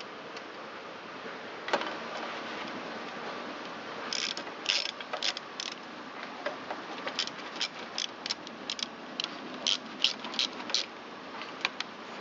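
Socket ratchet clicking in short, irregular runs as the carburetor's 3/8-inch-headed mounting bolts are run in. There is a single click about two seconds in, and the runs of clicks start about four seconds in.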